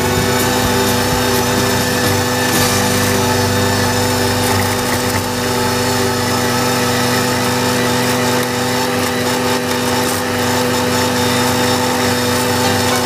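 Valtra A93 tractor's diesel engine running at a steady speed, driving an Agrimaster KP2600 flail mower through the PTO as it cuts grass.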